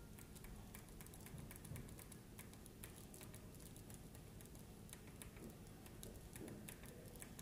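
Buttons on a set-top box remote control being pressed, a quick, irregular run of faint clicks, several a second, as the cursor is stepped across an on-screen keyboard to type letters.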